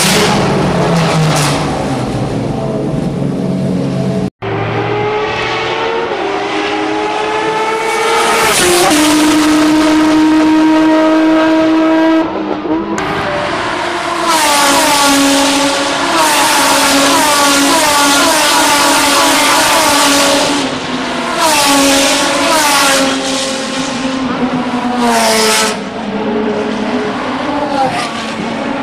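Renault Mégane Trophy race car's 3.5-litre V6 (a modified Nissan VQ35DE) running in a garage, then heard on the circuit at speed. On track the engine note climbs and drops back sharply again and again as it shifts up through the gears, dips lower for braking, and the car passes close by near the end.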